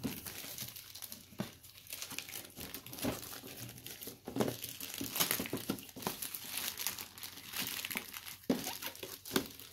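Plastic mailer bag and plastic wrapping crinkling and tearing as they are pulled off a boxed parcel by hand, in irregular rustling bursts.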